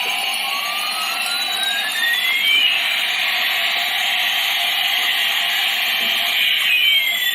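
Toy A380 airliner's electronic jet flight sound effect: a steady hissing rush with a whine that sweeps slowly up and down.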